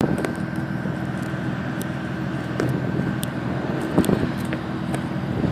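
Turbocharged Hyundai Tiburon V6 engine and exhaust running at a steady idle, with scattered light ticks over the low exhaust note.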